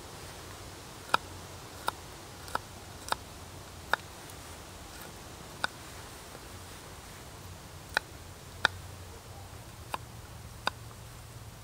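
Knife blade tapping down on a small cutting board as food is sliced by hand: about ten sharp taps at uneven intervals, with a pause of a couple of seconds about halfway through.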